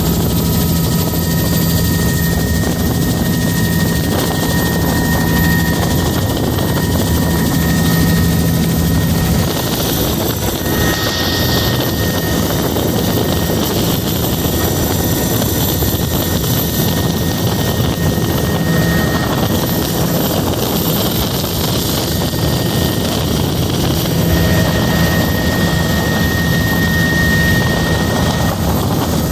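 Helicopter in flight heard from inside the cabin: a loud, steady rotor and engine noise with a low hum and a high whine that fades in and out.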